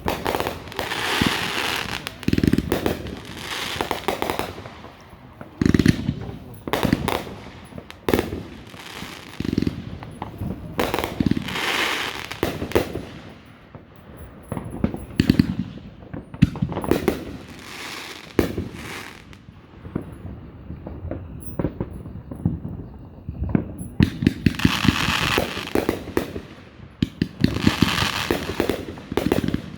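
Fireworks display: aerial shells bursting in repeated booms every second or few, with crackling and hissing between them and a short lull about two-thirds of the way through.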